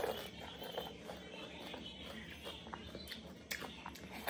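Chewing a mouthful of panipuri: small wet crunches and mouth clicks as the fried puri shell breaks up, scattered irregularly.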